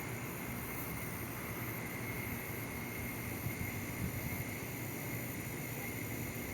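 Steady outdoor background noise with a low hum, hiss and a faint thin high tone. There are a couple of small soft bumps midway.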